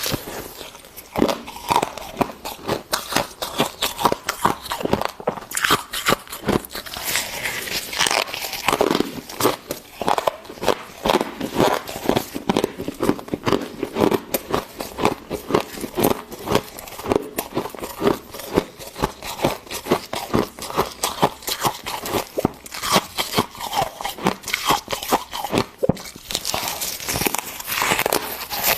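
Person biting and chewing fluffy freezer frost mixed with ice chips: a quick, irregular run of crunches, several a second.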